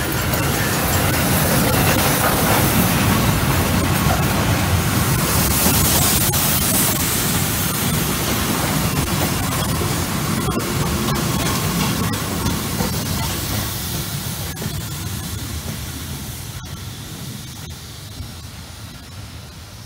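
FS Gruppo 640 steam locomotive hissing steam as it hauls a rake of old Centoporte carriages past, with the rumble and clatter of the wheels on the track. The sound fades over the last several seconds as the train moves away.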